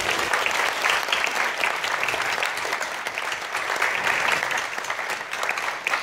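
Audience applauding: many people clapping together, steady and dense throughout.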